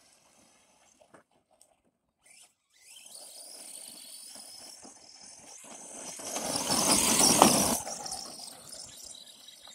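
Arrma Senton 4x4 RC short-course truck driving fast over loose dirt. After a nearly quiet start with a few faint clicks, its sound comes in about three seconds in, grows to a loud close pass around seven seconds, then fades.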